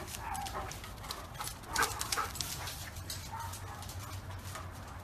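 Dogs at play: a few short whines, the loudest a little under two seconds in, over many small scuffs and clicks.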